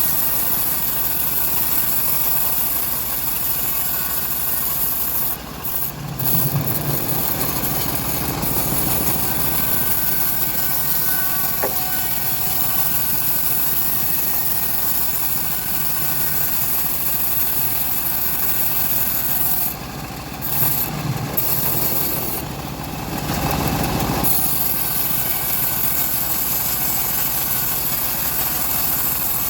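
Homemade band sawmill sawing through a teak log, its motor and blade running steadily. The high hiss of the cut thins briefly a few times, about six seconds in and again near twenty and twenty-three seconds.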